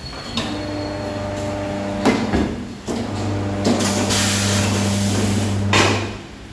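Tyre-changing machine at work: a motor hums steadily in two stretches, with several sharp metal knocks. A loud hiss of compressed air runs through the second stretch, from about four seconds in, and the motor and hiss stop together with a final knock near the end.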